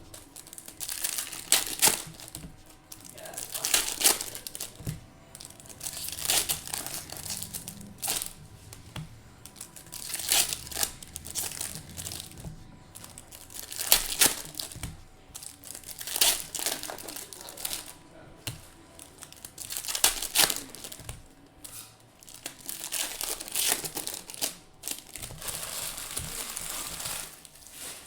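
Foil wrappers of Bowman Chrome baseball card packs being torn open and crinkled by hand, one pack after another, in repeated bursts every couple of seconds.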